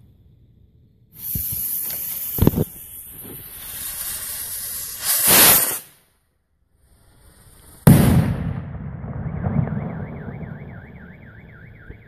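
Fireworks going off: a long hiss with sharp pops, then a sudden loud bang about eight seconds in. The blast sets off a car alarm, which starts a fast warbling siren.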